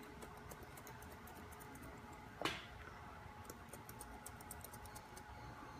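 Faint, quick runs of small clicks from hair-cutting scissors snipping over a comb. One brief louder sound falling in pitch comes about two and a half seconds in.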